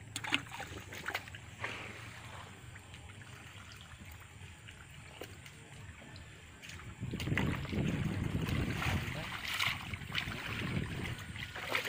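Muddy water sloshing and splashing as a man wades through a drained fish pond and scoops a hand net through the mud. It is faint at first with a few sharp clicks, then louder and continuous from about seven seconds in.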